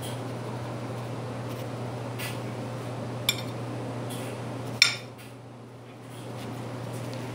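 Two sharp clinks against a glass bowl, about a second and a half apart, the second louder and ringing, over a steady low hum.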